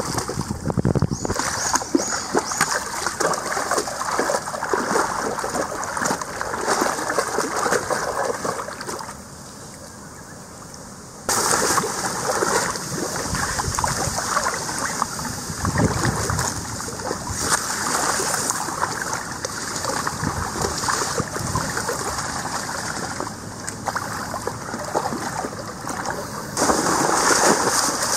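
A dog splashing through and swimming in a river, the water sloshing and splattering irregularly. There is a quieter stretch of running water about a third of the way in before the splashing starts again abruptly.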